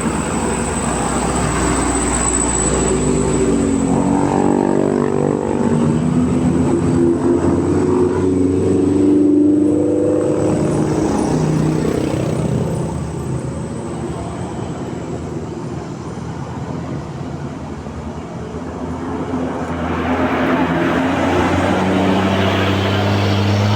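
Buses going past on a steep mountain road with their engines running. The sound dips in the middle and builds again near the end as another bus approaches.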